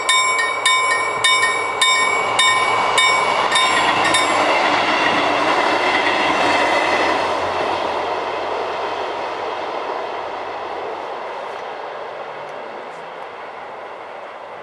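Level-crossing warning bell ringing just under twice a second, stopping about four seconds in, while a regional train runs over the crossing. The train's wheels on the rails swell to a peak a few seconds later and then slowly fade as it moves away.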